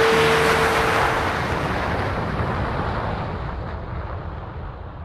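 Rushing, wind-like whoosh that slowly fades away over a low rumble, with a single held note dying out in the first second and a half.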